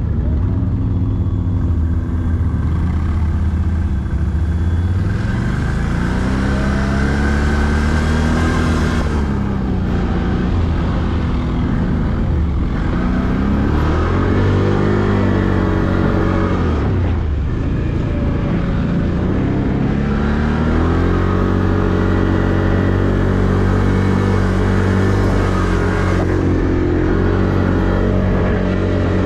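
ATV engine running under way, its pitch climbing and falling several times as the throttle is opened and eased, then holding steadier and higher in the last third.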